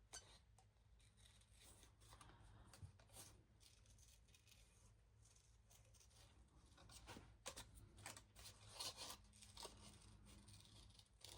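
Faint snips of small scissors fussy-cutting a paper image, short and irregular, coming more often in the second half.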